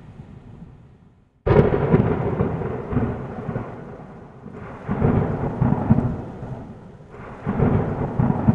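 Thunder with rain. The sound dies away almost to nothing, then a sharp crack about a second and a half in breaks into loud rolling rumbles that swell again twice, near the middle and near the end, over a steady hiss of rain.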